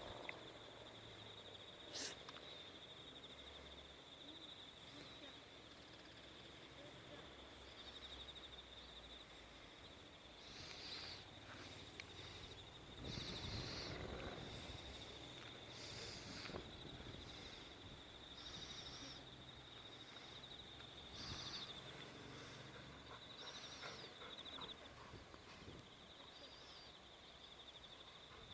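Faint steady high-pitched trill of a cricket singing, which stops about 25 seconds in, with a handful of short louder noises over it.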